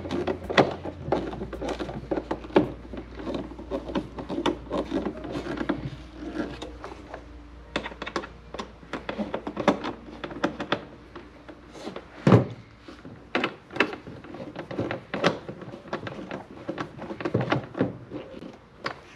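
Repeated small clicks and knocks of a Phillips screwdriver and hands working screws on a plastic headlight housing, with one louder knock about twelve seconds in. A low hum underneath stops at about the same time.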